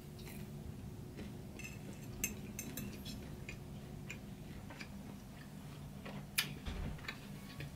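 Close-miked chewing of a mouthful of food: scattered soft, wet mouth clicks, with one sharper click about six seconds in, over a faint low steady hum.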